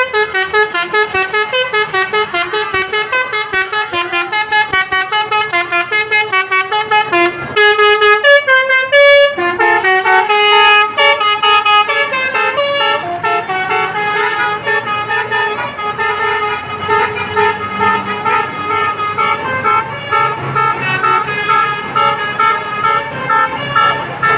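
QQ Trans bus's telolet basuri horn playing a melody of rapidly changing pitched notes. For the first several seconds it stutters at about four notes a second, then runs on in longer, steadier notes.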